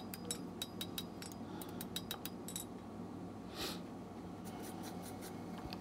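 Faint, light metal clicks and clinks from a steel drift and a thin hinge strap being handled on an anvil, over a low steady hum; a brief soft hiss about three and a half seconds in.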